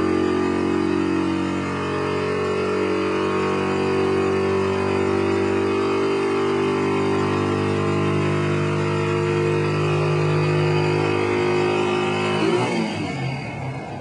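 An engine running steadily, its pitch drifting slowly up and down; near the end the sound breaks off into a rushing noise.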